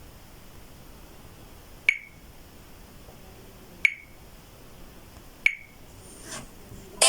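Samsung Wave II mobile phone giving three short, high beeps about two seconds apart over a low hiss, then a ringtone's music starting loudly at the very end.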